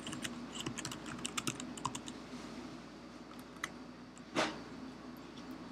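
Typing on a computer keyboard: a quick run of key clicks in the first two seconds, then a few scattered keystrokes and one louder click about four and a half seconds in.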